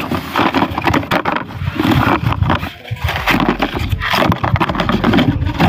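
Cardboard packaging being pulled apart and handled, its flaps and panels scraping and rubbing against each other over and over.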